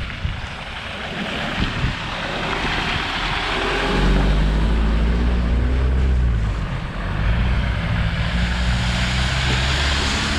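Land Rover Defender engine labouring along a muddy lane, getting much louder about four seconds in as the vehicle nears. Tyres hiss through mud and puddles as it comes close near the end.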